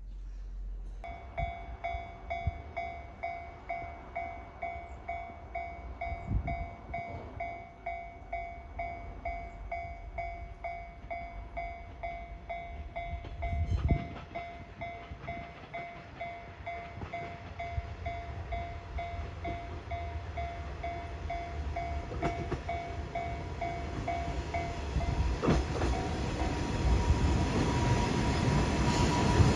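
Railway level-crossing warning bell ringing in a steady pulse, about two strikes a second, while a diesel railcar approaches with its running noise growing steadily louder. The bell stops a few seconds before the end as the train draws close.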